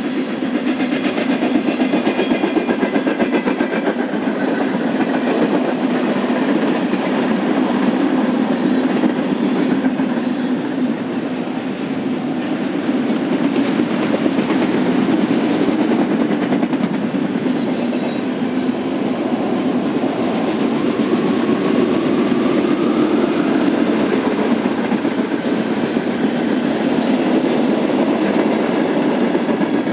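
BNSF freight train's cars rolling past, steel wheels giving a steady, continuous clatter on the rails.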